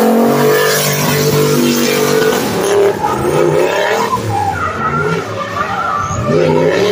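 Drift car sliding sideways past the barrier wall: its engine revving hard, the pitch rising and falling as the driver works the throttle, over the hiss of tyres skidding and smoking. It is loudest as it passes close, early on, then drops back a little as it drives away.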